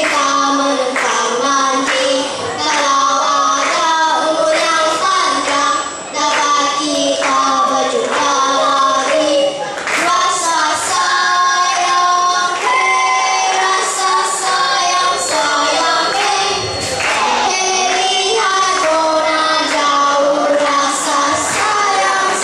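A small group of young children singing a song together into microphones.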